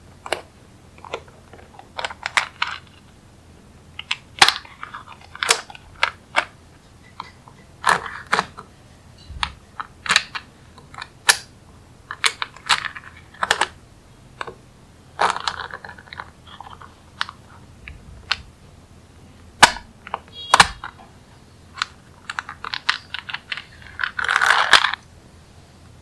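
Small magnetic balls clicking sharply as they snap together one after another, at an uneven pace, with a few short rattling runs of many balls clacking at once, the longest near the end.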